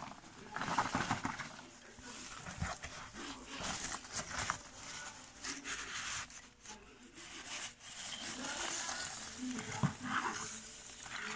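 Hands rummaging through polystyrene foam packing peanuts in a cardboard box: the foam pieces and cardboard rustle and scrape in irregular bursts.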